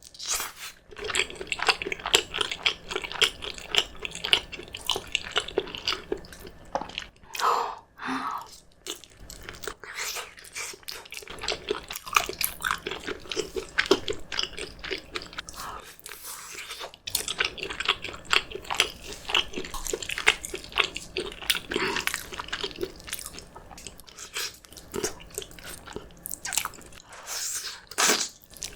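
Close-miked chewing and biting, dense irregular wet smacks and squishes of soft, gelatinous braised beef feet with rice, now and then a crunchier bite.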